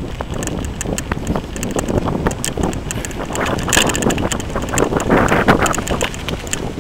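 Wind rushing over the microphone of a camera riding on a moving mountain bike, with rapid rattling clicks from the bike jolting over the rough road surface. The rush swells a few times, most strongly near the middle and past halfway.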